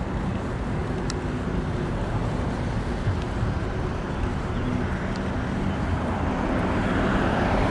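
Road traffic noise: a steady rumble of passing cars, growing louder near the end as a vehicle comes closer.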